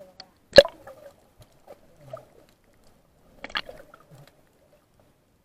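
Muffled sound heard by a camera held underwater: two sharp knocks about three seconds apart, the first the louder, with faint squeaky, wavering sounds between.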